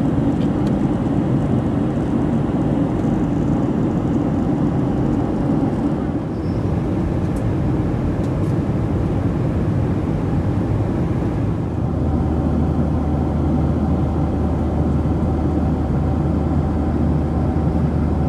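Boeing 737-900ER cabin noise heard from a window seat behind the wing: the steady rush of air and the CFM56-7B engines. A steady low hum comes in about twelve seconds in.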